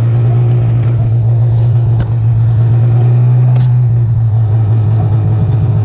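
Snowmobile engine running steadily at speed, one loud, even drone.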